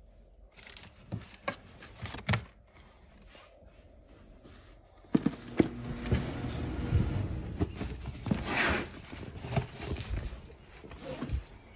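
Footsteps and rustling handling noise with scattered clicks and knocks, growing louder from about five seconds in.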